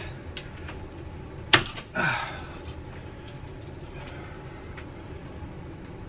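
A circuit breaker being worked loose from a house breaker panel: a sharp click about a second and a half in as it comes off the bus bar, then a short scraping rustle and a few faint ticks of handling.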